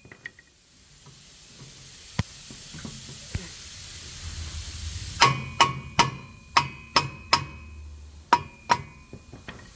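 Hammer tapping on the steel rear hub assembly of a 2019 Ford Transit to free the washer holding the bearing onto the shaft. A few light knocks come first, then about halfway in a series of around nine sharp, ringing metal strikes.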